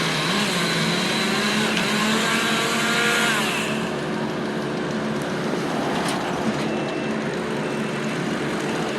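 Heavy engines running steadily with a low, even hum; a brighter hissing layer on top drops away about three and a half seconds in, leaving the quieter engine sound.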